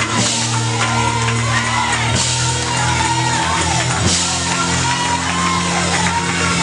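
Live gospel church music: a band holding sustained chords over a bass line, with a cymbal crash about every two seconds, and voices shouting and singing over it.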